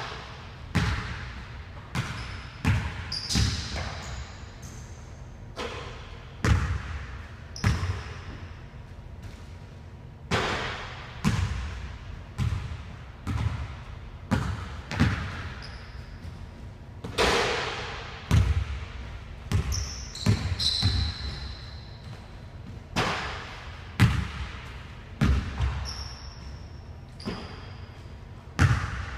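A basketball bouncing on a hardwood gym floor: irregular dribbles and rebounds, each thud echoing in the large hall, with a few short high sneaker squeaks.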